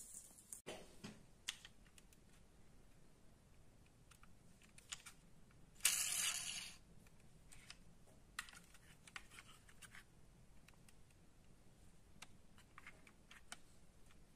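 Faint clicks and light taps of a plastic toy motorcycle being picked up and handled, with one louder scrape about six seconds in lasting about a second.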